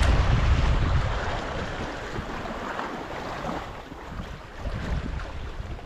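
Wind buffeting the microphone, heaviest in about the first second, over sea water washing against the rocks.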